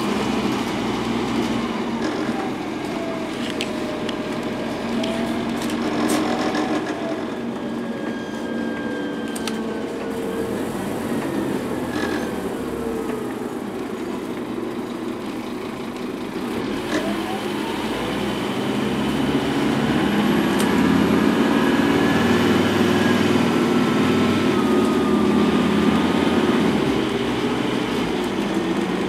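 Scania N230UD double-decker bus's five-cylinder diesel engine and drivetrain heard from inside the passenger saloon while under way, with a low rumble and a whining note that rises and falls several times. It grows louder for a stretch in the last third as the bus works harder.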